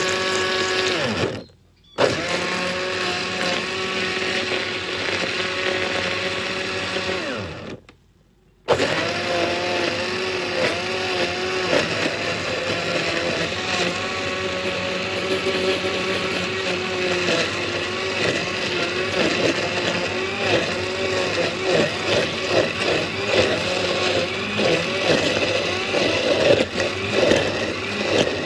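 Electric blender running, grinding a curry spice paste of onions, garlic, red chillies and candlenuts with a little water. The sound drops out briefly twice, at about a second and a half and about eight seconds in, then runs on with its pitch wavering as the load in the jar shifts.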